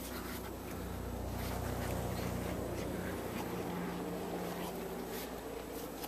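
Boots and a dog's paws scuffing and crunching in deep snow, over a steady low hum.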